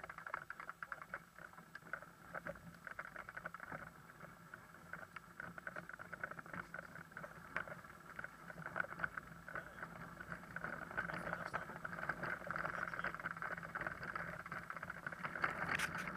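Bicycle riding over cobblestones: a constant rattle of quick clicks and knocks from the bike and its mount, over a steady rolling hiss.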